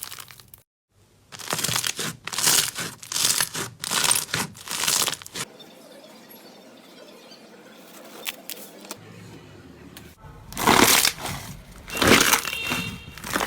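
Slime being squeezed and pressed by hand, making dense crackling in a run of repeated squeezes. It goes quieter for a few seconds in the middle, then comes back loud near the end.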